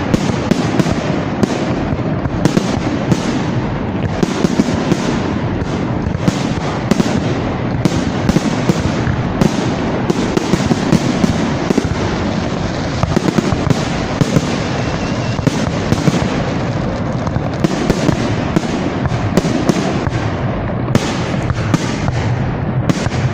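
Fireworks display: a dense, continuous barrage of shell bursts and crackling, with many sharp bangs every second and no pause.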